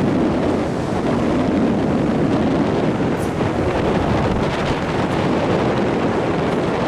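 Strong wind blowing across the microphone, a steady loud rushing and buffeting noise.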